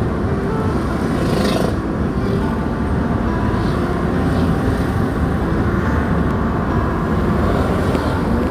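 Steady road and engine noise inside a moving car's cabin, a low rumble from the tyres and engine.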